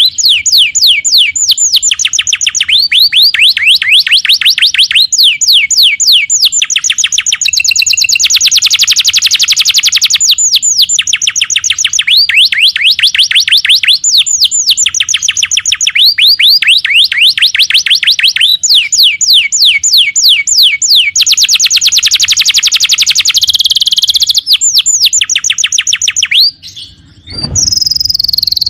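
Domestic canary singing continuously in rolling trills: phrases of rapidly repeated notes, each lasting a second or two and pitched differently from the one before. Near the end the song breaks off briefly and a short low thud is heard before it resumes.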